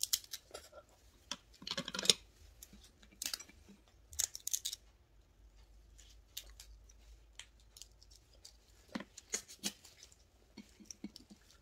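Red snow crab shells being snipped with scissors and cracked apart: scattered sharp clicks and crunches at an irregular pace, bunched in a few short clusters.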